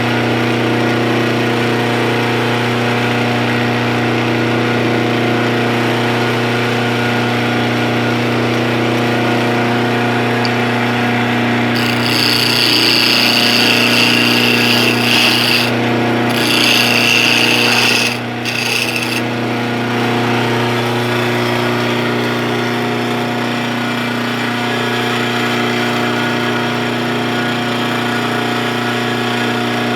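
Wood lathe running with a steady motor hum while a turning tool cuts a wooden chisel handle. About twelve seconds in, a louder, higher scraping of the tool against the spinning wood sets in for several seconds, broken twice by short pauses.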